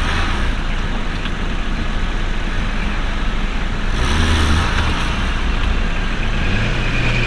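Off-road 4x4's engine running under way, its low note shifting a few times, over a steady rush of noise.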